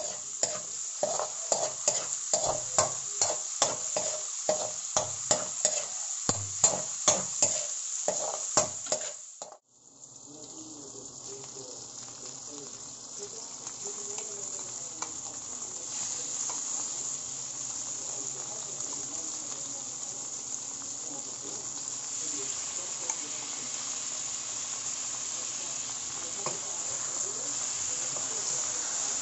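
A spatula scraping and knocking against a metal wok in quick stirring strokes, about two a second, over sautéing garlic, ginger and onion. After a brief gap about ten seconds in, a steady sizzle of raw chicken pieces frying in the hot oil.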